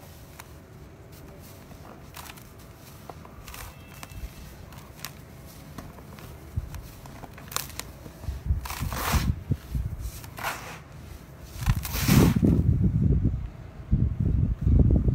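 A dry sand-cement block crumbled by hand over a bucket: gritty crunching with sand pouring down onto the pile. It is soft at first, grows louder about seven seconds in, and turns to heavier, deeper crunching in the last few seconds.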